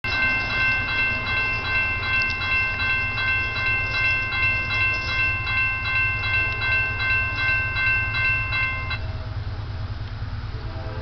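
Railroad grade-crossing warning bell ringing in a rapid, regular rhythm as the crossing gates come down for an approaching train, cutting off suddenly about nine seconds in once the gates are down. A low rumble runs underneath.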